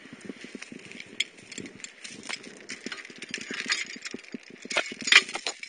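Steel chain rattling and clinking as it is unhooked and handled, with the sharpest clinks near the end.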